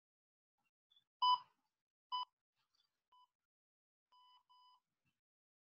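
Workout interval timer beeping: three short beeps about a second apart, then a longer beep broken in two, counting down the last seconds of the 15-second rest to the start of the next 45-second exercise. The first two beeps are the loudest; the later ones are faint.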